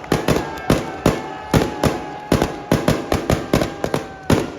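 Car exhausts popping and banging in rapid, irregular succession, about three sharp bangs a second, then stopping abruptly near the end.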